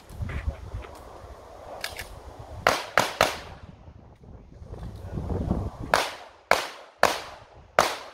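Handgun shots during an IPSC course of fire: a faint shot, then a quick string of three, then four more spaced about half a second apart, with sharp cracks that ring off briefly.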